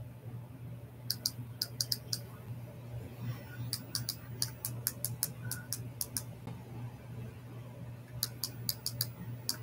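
Laptop keyboard typing in three short bursts of quick key clicks, over a steady low electrical hum.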